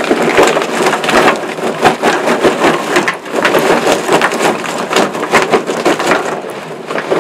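Charcoal briquettes being poured from a paper bag into the steel firebox of a Pitmaker BBQ Vault smoker: a dense clatter of many small knocks and rattles that eases off near the end. New fuel is going onto a fire that was running low on charcoal.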